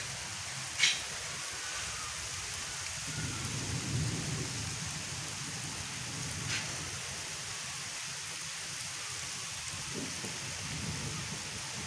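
Steady rain falling, with a sharp drip-like hit about a second in and another midway through. A low rumble swells about three seconds in and again near the end.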